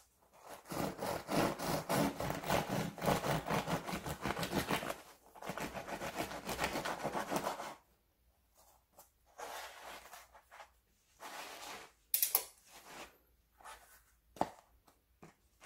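Serrated bread knife sawing through the crisp crust of a ciabatta loaf on a wooden cutting board: rapid rasping strokes in two stretches, a short break between them. After that come softer crackles and a few sharp clicks as the cut loaf is handled.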